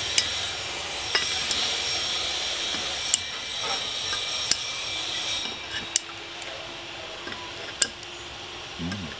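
Kitchen scissors and chopsticks clinking against ceramic plates and bowls as food is cut and served, with sharp single clinks every second or two. Under them is a steady hiss that fades about halfway through.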